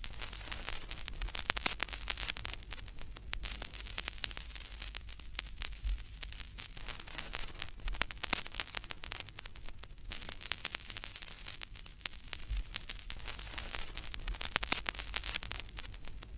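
Crackling static: a hiss full of scattered clicks over a steady low hum, swelling and fading every few seconds.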